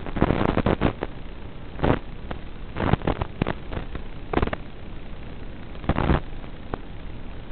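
Steady hiss broken by irregular clusters of sharp crackling pops, the busiest near the start and again about six seconds in.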